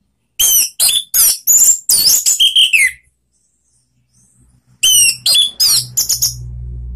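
Orange-headed thrush (anis merah) singing loud, rapid phrases of sharp, gliding whistled notes in two bursts, with a pause of about two seconds between them. A low hum comes in under the second burst and runs on after it.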